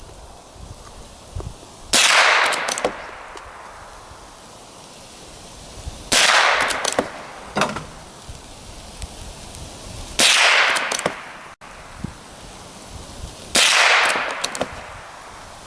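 Mossberg 46M(b) .22 LR bolt-action rifle fired four times, roughly four seconds apart, each shot trailing off over about a second, with small clicks of the bolt being worked between shots.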